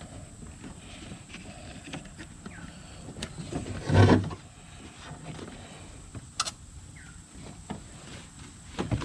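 Handling noises from wire being worked through a vehicle interior: scattered rustles, clicks and small squeaks, with one loud thump about four seconds in and a sharp click a couple of seconds later.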